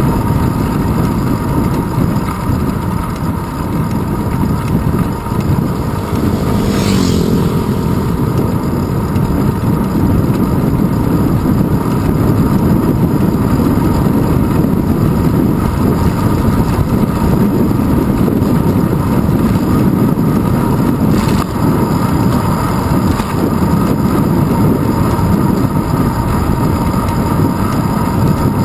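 Steady wind buffeting and road rumble of a bicycle riding on pavement, heard through a handlebar-mounted camera in its housing, with a brief sweeping sound about seven seconds in.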